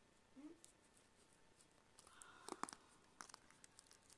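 Faint clicks and snaps of plastic, with a short tearing sound a little past halfway, as a strongly glued tablet cover is pried apart.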